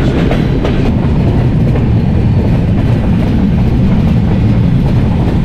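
Passenger train running along the track, heard at an open coach door: a steady rumble of wheels on rail, with a few short clicks.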